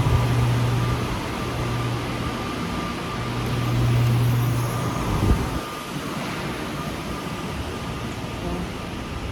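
Motor vehicle running with a steady low hum and road noise, fading somewhat after about five seconds; a single thump about five seconds in.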